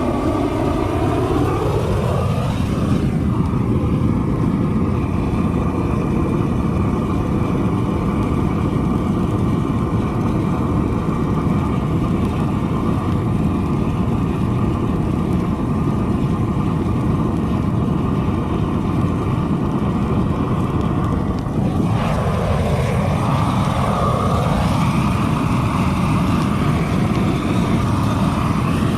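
Propane weed-burner torch running at full flame, a steady rushing roar. A tone in it rises over the first few seconds as the flame opens up, and wavers about 22 seconds in.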